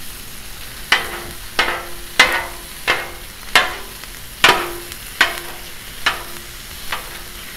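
Metal spatula striking the steel top of a Blackstone flat-top griddle while chopping and mixing chorizo: sharp clanks about every three-quarters of a second, each with a short metallic ring, over the steady sizzle of the meat frying.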